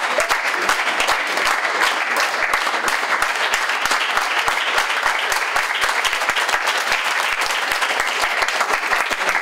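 A small audience clapping steadily: dense, continuous hand claps of applause for the performers taking their bows.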